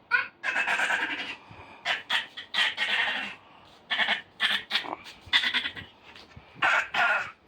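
A person's voice making goat-like bleating noises: about seven quavering calls in a row with short breaks between them.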